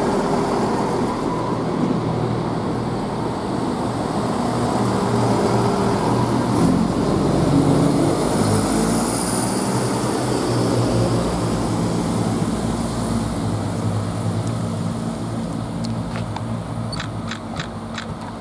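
Chiltern Railways Class 168 diesel multiple unit pulling out of the platform, its underfloor diesel engines running under power. The sound grows louder as the cars pass and then fades as the train draws away, with a quick run of clicks near the end.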